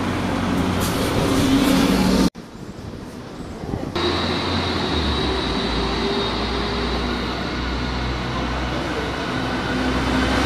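Double-decker diesel buses running as they pass close by in street traffic. The sound cuts off suddenly about two seconds in and comes back quieter. From about four seconds in, another double-decker's engine runs steadily as it approaches and passes, with a thin high whine over it.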